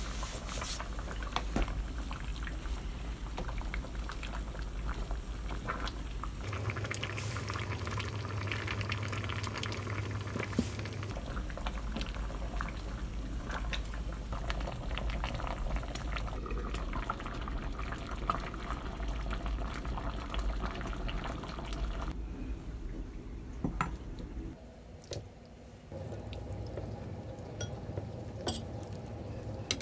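Spicy braised chicken stew bubbling and popping in a pot as it simmers over medium-low heat, heard in several short takes. Near the end, stew is ladled into a serving bowl.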